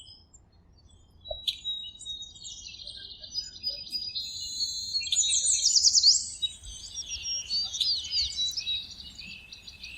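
Several songbirds chirping and singing: high trills and quick falling whistles overlapping, busiest around five to six seconds in.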